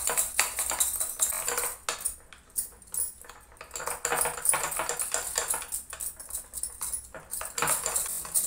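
Metal spoon beating besan (gram-flour) batter in a glass bowl, clinking and scraping fast against the bowl's sides, with short pauses about three and seven seconds in.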